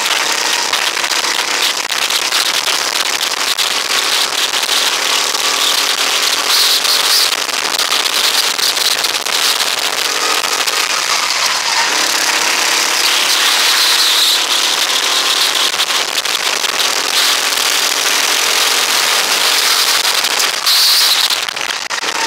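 Rental go-kart's small engine running hard at racing speed, heard from the driver's seat, its note rising and falling with the throttle through the corners.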